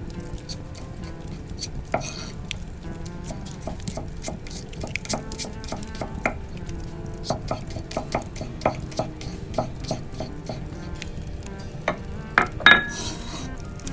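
A run of irregular sharp clicks and knocks, some with a short pitched ring, over a steady low hum; the loudest knocks come near the end.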